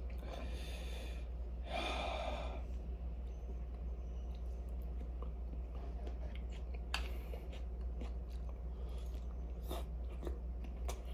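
A person eating close to the microphone: two breathy exhalations in the first three seconds, then quiet chewing with a few small clicks over a steady low hum.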